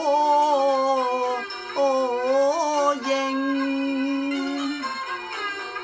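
Cantonese opera singing in the pinghou (male-role) vocal style: a long, wavering melismatic phrase drawn out over one syllable, with traditional instrumental accompaniment. The voice bends through two swells in the first three seconds, then settles on a steadier held note that fades about five seconds in, leaving the instruments.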